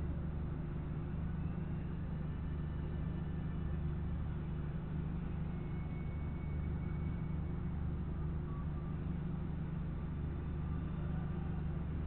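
A steady low hum that does not change, with a few faint, brief higher tones in the middle.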